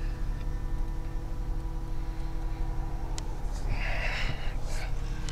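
2019 Dodge Charger GT's V6 idling steadily, heard from inside the cabin, with a brief rustle of the hand-held phone being moved about four seconds in.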